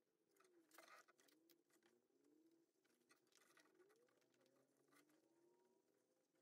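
Near silence, with faint clicks, the strongest about a second in, and a few faint, wavering squeaky glides.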